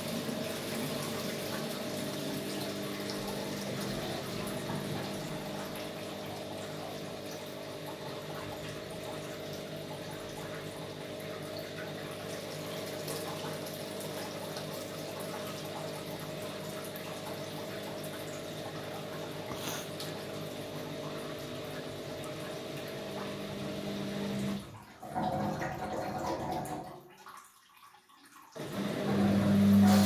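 Amica WA 14680 W front-loading washing machine taking in water: a steady rush of inflowing water with a low hum. Near the end the inflow stops and it goes almost silent, then a louder motor hum starts.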